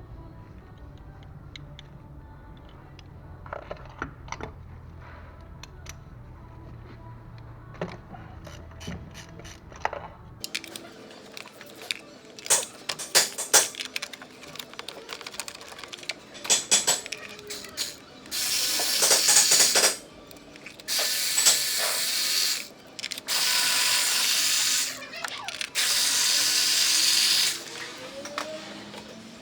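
Workshop tool sounds while working on an engine: a low hum that stops about ten seconds in, then rapid clicking and rattling like a ratchet, then four loud hissing bursts of about two seconds each.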